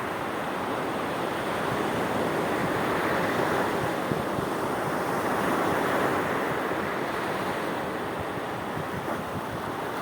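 Sea waves washing onto the shore in a continuous rushing wash, swelling a little midway and easing off toward the end.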